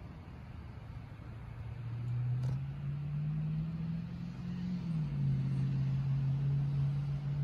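A low, steady rumble with a hum in it that swells in about two seconds in and holds, its pitch shifting slightly partway through, with a faint click just after it begins.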